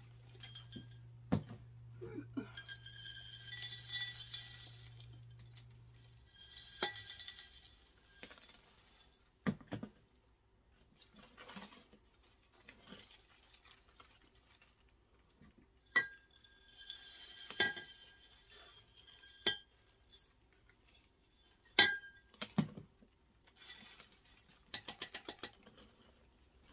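Potting mix being scooped, poured and stirred by hand in a makeshift bowl: scattered clinks and knocks with several short rustling pours. A steady low hum runs under the first seven seconds or so.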